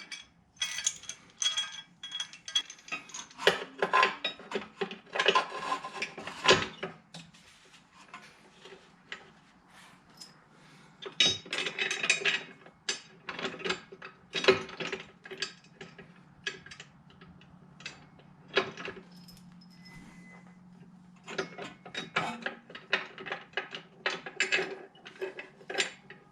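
Hand tools working on a car's rear differential bolts: irregular metal clinks, clanks and ratchet clicking in spurts, with quieter pauses between.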